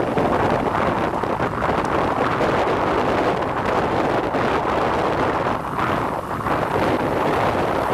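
Steady wind rushing over the microphone, mixed with the running noise of the moving vehicle that carries the camera.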